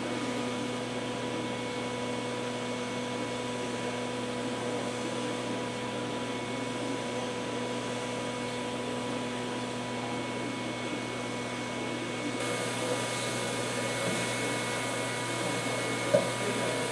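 Hilliard's Little Dipper chocolate tempering machine running, its electric motor giving a steady hum with a high whine over it. About twelve seconds in a brighter hiss joins it, and a single short knock comes near the end.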